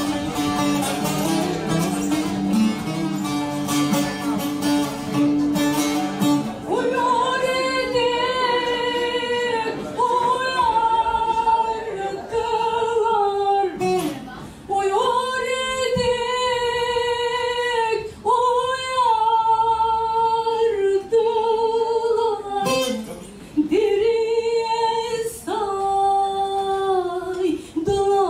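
Bağlama (long-necked Turkish saz) played alone in quick plucked strokes; about seven seconds in, a woman's voice begins singing a Turkish folk song over it in long held, wavering lines broken by short pauses, the saz accompanying.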